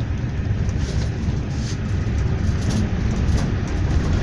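Cabin noise inside a GAZelle Next minibus under way: a steady low engine and road rumble, with scattered light clicks and rattles.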